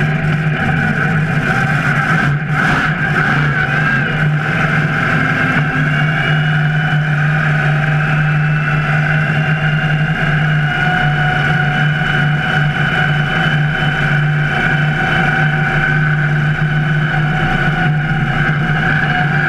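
Monster truck engine running steadily at a low, even speed, heard close up from the chassis, with no revving.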